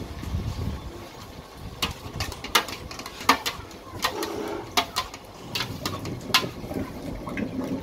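Sharp metal clinks and knocks of lassi-making: a metal bowl scooping yogurt into metal lassi pots and a wooden churner knocking inside a pot, about ten irregular strikes with a short ring.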